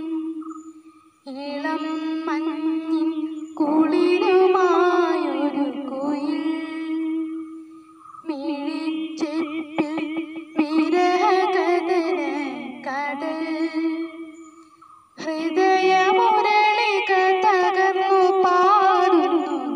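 A girl singing an old song solo, in long phrases with a wavering pitch and short breaks between them: about a second in, near the middle and about three-quarters of the way through. A few faint clicks sound around the middle break.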